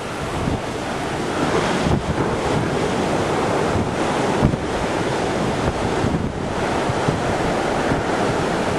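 Ocean surf breaking on a sand beach, a steady wash of noise, with wind buffeting the microphone in uneven gusts.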